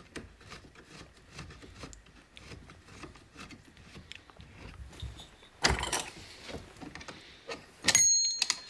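Small screws being turned by hand into a chainsaw's top handle with a hand tool, heard as a run of faint ticks and clicks. Louder scraping and rattling of metal parts comes about six seconds in, and a sharp metallic clink with a brief ring near the end.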